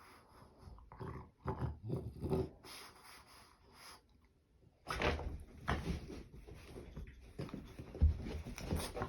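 French bulldog making weird noises: short, irregular sounds, a pause of about a second, then more sounds.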